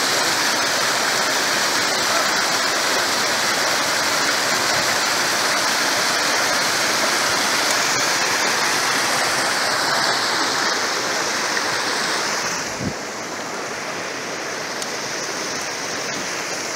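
Small woodland stream cascading over rocks in little waterfalls, a steady rushing and splashing of water. About twelve seconds in the sound drops to a quieter, duller rush.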